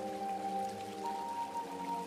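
Ambient background music of slow, sustained synth-pad chords, with a higher note coming in about a second in.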